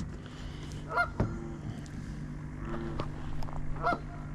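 A few short pitched bird calls, about a second in and again near the end, over a steady low hum.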